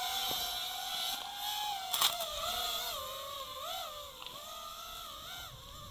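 FPV quadcopter's brushless motors whining, heard from the camera mounted on the quad itself. The pitch drops about two seconds in, then wavers up and down with the throttle. There is a sharp click about two seconds in.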